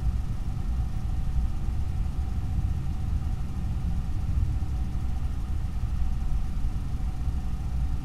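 Steady low rumble with a faint, even whine and light hiss: the background noise picked up by a night-vision trail camera's microphone, with no animal sound in it.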